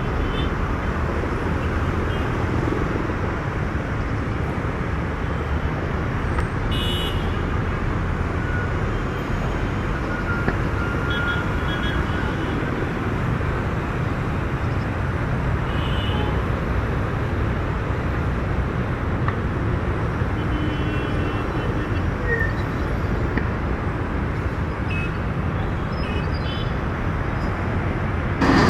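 Steady outdoor rumble of distant engines and vehicles, with a few faint, brief high tones scattered through it.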